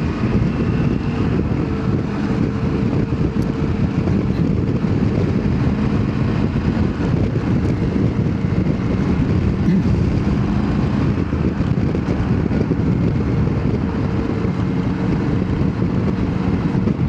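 Triumph Tiger 900 GT Pro's three-cylinder engine running at a steady cruise while riding, heard from a helmet-mounted microphone with heavy wind rush over it.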